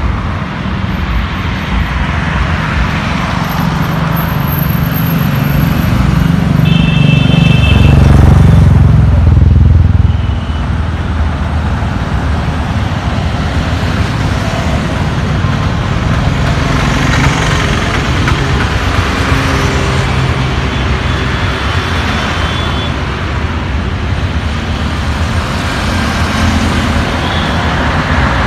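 Steady road traffic on a wide city road, the engine and tyre noise of cars, motorcycles and auto-rickshaws passing. The loudest moment is one vehicle passing close with a deep engine rumble, building from about six seconds in and ending abruptly near ten seconds, with a brief high tone over it.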